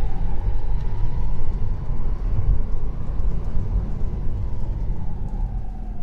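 In-cabin sound of a Tesla Model 3 Performance slowing from highway speed on a wet road, with regen turned low so the friction brakes do the work: a steady low road rumble and tyre noise. A faint whine rises slightly, then falls in pitch as the car slows.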